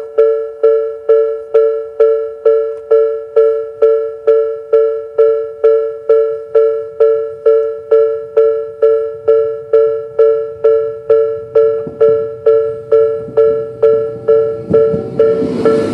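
Japanese railway level-crossing warning alarm (Tobu "sound B" electronic bell) ringing steadily, about two strikes a second. A low train rumble builds under it from about halfway through, and a train arrives near the end, its noise rising sharply.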